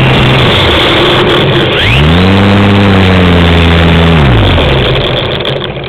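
Onboard audio of a brushless-motor RC Cub model plane in flight: a loud rush of wind over the microphone with the electric motor and propeller humming. The motor hum rises in pitch about two seconds in, holds, and falls back around four and a half seconds. The noise then dies away near the end.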